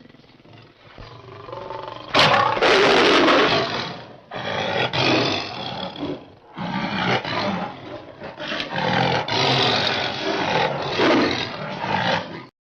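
Cave tiger sound effect built from big-cat calls: a low growl, then a loud roar about two seconds in, followed by several more roars and snarls with short breaks. The sound cuts off abruptly near the end.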